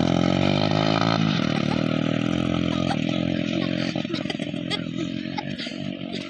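Small motorcycle engine revving hard as the bike pulls away across loose sand, its pitch climbing and then dropping about a second in. The engine sound then fades steadily as the motorcycle rides off into the distance.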